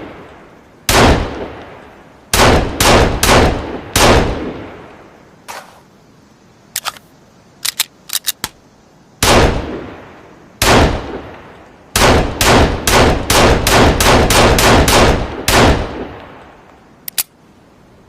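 Pistol shots, each with a long echoing tail: one shot, then four in quick succession, two more single shots, and a rapid string of about ten. A few short sharp clicks fall in the quieter stretch in the middle.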